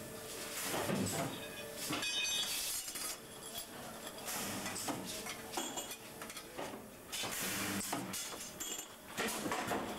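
Small pressed metal parts clinking and clattering against one another as they are handled and dropped into bins, in a run of irregular sharp knocks.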